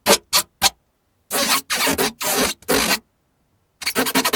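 Scratching or rasping strokes: three short quick ones, then four longer drawn strokes, then a fast fluttering scratch near the end.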